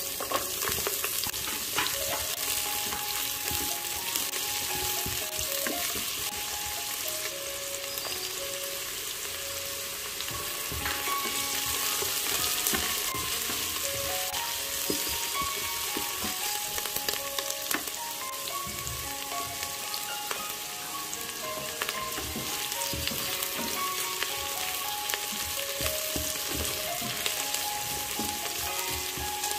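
Sliced shallots and ginger sizzling steadily in hot oil in the inner pot of a Philips electric pressure cooker, stirred with a spatula that scrapes and taps the pot.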